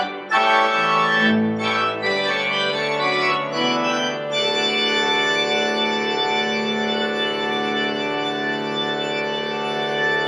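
Church organ playing a closing passage: chords moving for about four seconds, then a full final chord held steady for about six seconds.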